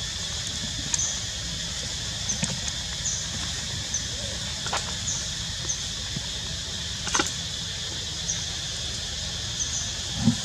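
Forest ambience: a steady high insect drone with short high chirps every second or so, broken by a few sharp clicks and rustles from baby macaques scrambling on tree roots, and a low thump near the end.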